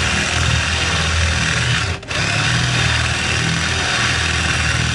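Cordless drill running a 35 mm hole saw through a merbau hardwood countertop, cutting a faucet hole; the steady whirr and grinding of the cut breaks off briefly about two seconds in.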